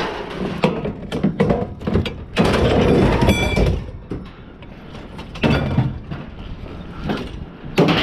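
Scrap metal falling and crashing in several loud clattering bursts, the biggest about two and a half seconds in ending in a ringing metallic clang.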